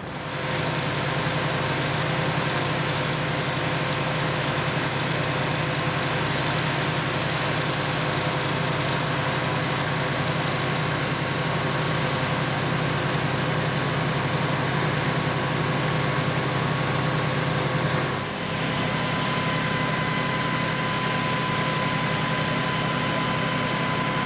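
Fire engine's diesel engine running steadily, a deep pulsing hum with a steady whine above it. The sound dips and changes about eighteen seconds in.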